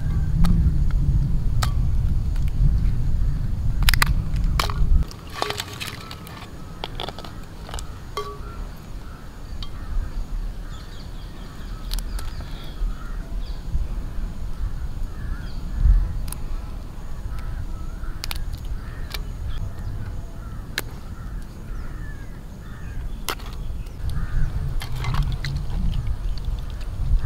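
Raw crabs being cleaned by hand in a clay pot of water: sharp clicks and snaps of shell as claws and legs are broken off, with water sloshing. A low rumble fills the first five seconds, and crows call faintly in the background.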